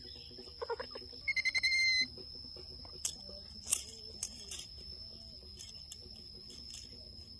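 Short high-pitched animal calls: a brief rising call, then a rapid pulsed trill lasting under a second, followed by a few sharp clicks, all over a steady high-pitched whine.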